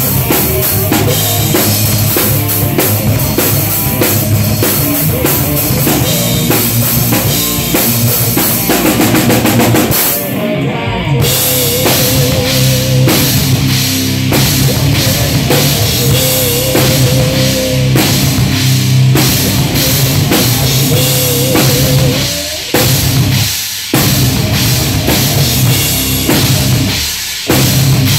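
A rock band playing a song, led by a close drum kit: kick drum, snare and Soultone cymbals hit hard, with sustained wavering band tones underneath. The cymbals drop out briefly about ten seconds in, and the band stops short a few times near the end.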